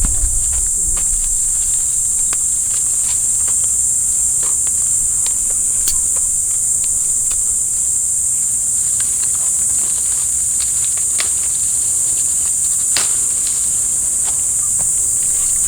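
A steady high-pitched drone of insects calling in chorus, with scattered light clicks and snaps over it.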